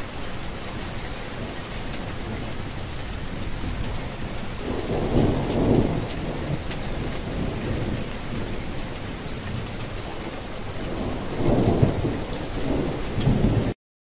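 Steady rain with rolling thunder, the thunder swelling twice, about five seconds in and again near the end. The sound cuts off suddenly just before the end.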